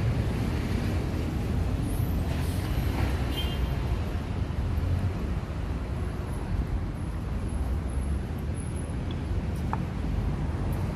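City street traffic: cars and motorbikes running on the road in a steady low rumble.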